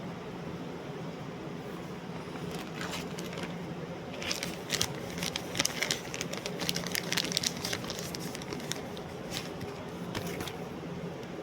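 Crinkling, crackling handling noise: a quick irregular run of clicks that starts about two and a half seconds in, is thickest midway and thins out near the end, over a steady low room hum.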